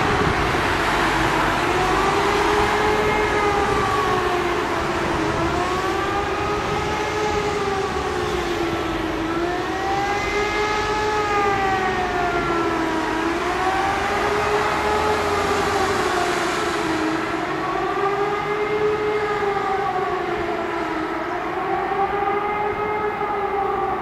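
Civil-defence warning sirens sounding a test, a steady wail that rises and falls in pitch about every four seconds.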